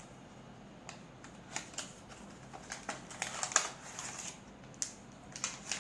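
A small cardboard product box being opened by hand and its contents handled: irregular crisp clicks, taps and rustles of card and packaging, starting about a second in.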